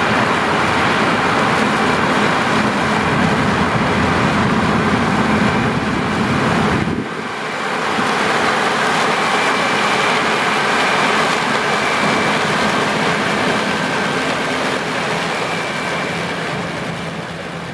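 Massey Ferguson 9560 combine running steadily while harvesting corn: engine and threshing machinery noise with a deep rumble that falls away about seven seconds in.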